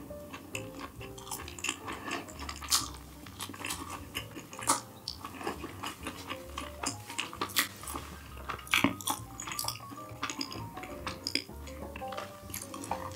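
Eating utensils tapping and scraping against takeout dishes in many short irregular clicks, over background music with a pulsing bass.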